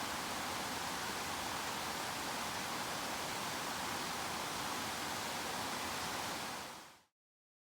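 Steady rushing of water swollen by heavy rains, fading out about a second before the end, then silence.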